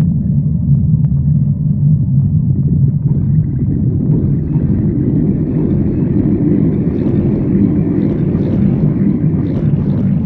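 Stomach growling: a continuous low rumble that grows fuller and brighter from about three seconds in.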